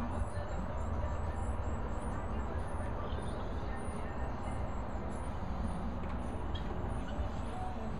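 Steady low outdoor rumble, with faint short high-pitched chirps repeating about twice a second above it.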